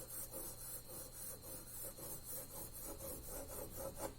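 Pencil scratching on paper in quick, repeated shading strokes, about four or five a second, laying circular hatching around a drawn sphere.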